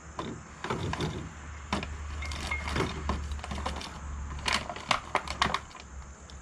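Small metal hardware clinking and rattling in irregular clicks, as bolts and fittings are handled and sorted to mount a light, over a steady low hum.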